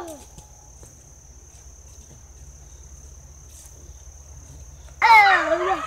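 A steady high insect drone, cricket-like, runs through a quiet stretch. About five seconds in, dogs break into loud yelping cries whose pitch swoops up and down.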